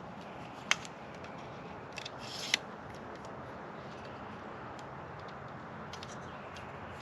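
Radio gear being handled and unpacked: a sharp click under a second in, then a few lighter clicks and a short rustle ending in a second sharp click a little past two and a half seconds in, followed by a steady background hiss.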